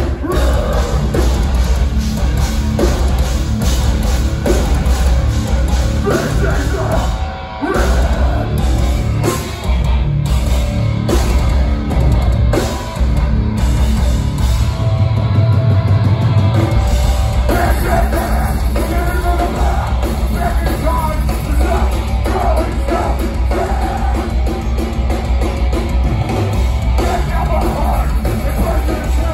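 Metalcore band playing live and loud, with vocals, heavy drums and bass, and short breaks in the music about seven and a half and thirteen seconds in.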